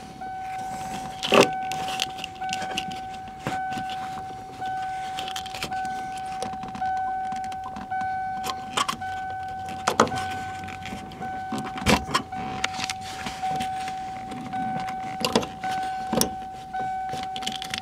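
A vehicle warning chime beeping steadily about once a second, one high tone with short breaks, from a 1992 Ford Explorer with the key cycled off. Scattered clicks and knocks of hands and metal fittings being handled at the fuel lines on top of the fuel pump, the loudest about ten and twelve seconds in.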